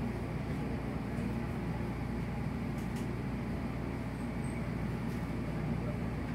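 Steady low rumble of a city bus heard from inside the passenger cabin: engine and running noise, with a couple of faint rattling clicks.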